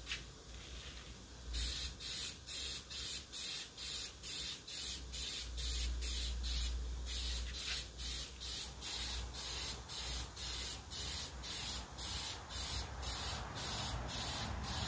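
Aerosol spray-paint can spraying onto a canoe hull in quick short bursts of hiss, about three a second. It starts about a second and a half in and pauses briefly near the middle.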